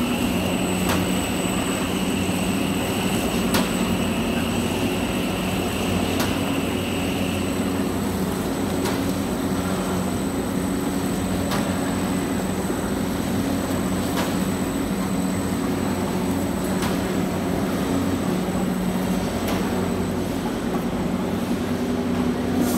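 Corrugated box-making machinery running with a steady low hum, and a sharp click about every two and a half seconds as it cycles. A high whine runs beneath it and stops about seven seconds in.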